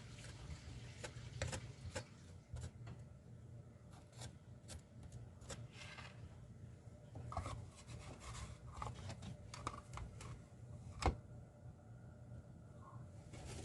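Wet plaster being spread and worked by hand: faint rubbing and scraping with scattered light clicks, and one sharper click about eleven seconds in.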